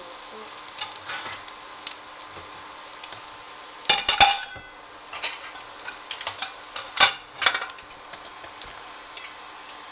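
Egg omelette with potato and carrot filling frying in a non-stick pan, with a steady faint sizzle and scattered small crackles. A utensil clatters against the pan twice, about four seconds in and again about seven seconds in.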